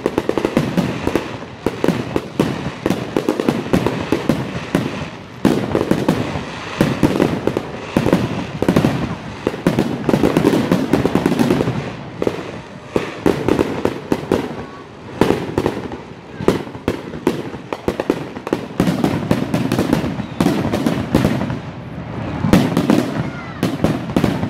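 Aerial fireworks display: a dense barrage of shells bursting in rapid, overlapping bangs and crackles.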